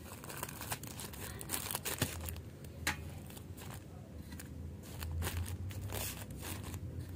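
Plastic wrapping on packs of toilet rolls crinkling irregularly as the packs are handled and straightened.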